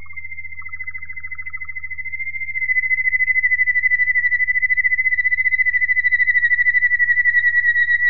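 Waterslager (Malinois) canary singing one long, fast, even trill on a single pitch that drifts slightly lower, getting louder about two and a half seconds in, with a fainter lower trill in the first two seconds. A steady low hum runs underneath.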